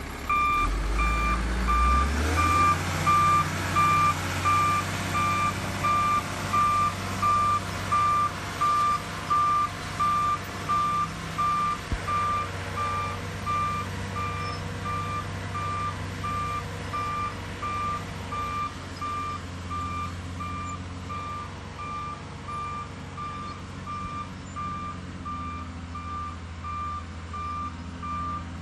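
A heavy machine's reversing alarm beeps steadily at one pitch, about once a second, over its engine running underneath. The engine revs up about two seconds in.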